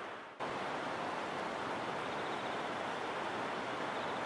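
Steady rushing outdoor noise, wind on the microphone. It fades to a brief dip and comes back abruptly about half a second in.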